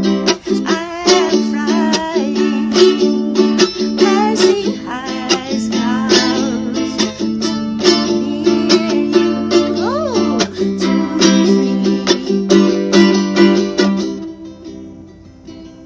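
Ukulele strumming chords steadily in an instrumental break, with a gliding melody line above. It gets quieter about 14 seconds in.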